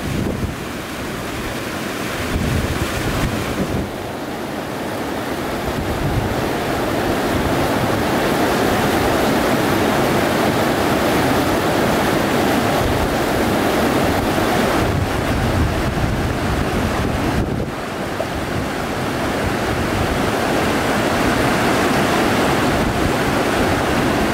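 River rapids rushing over rocks: a loud, steady wash of white water, with wind gusting on the microphone.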